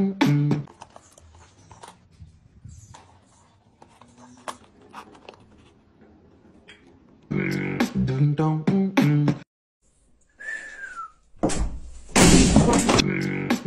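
Short bursts of beatbox-style vocal music, split by a quiet stretch of faint clicks and rustles. Near the end come a short falling whistle and a loud burst of hiss.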